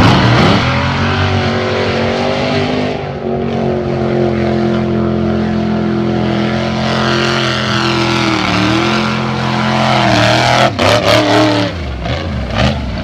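Lifted mud truck's engine held at high revs with a steady strained note as it churns through a deep mud pit. The note dips briefly, then breaks into a burst of sharp, uneven revs near the end.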